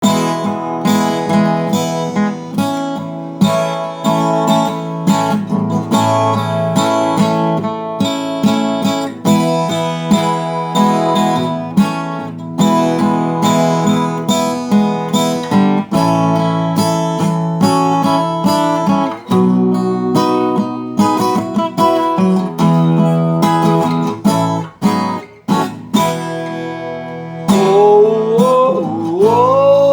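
Acoustic guitar strummed in a steady rhythm as a song's instrumental opening, with a voice sliding up into a held note near the end.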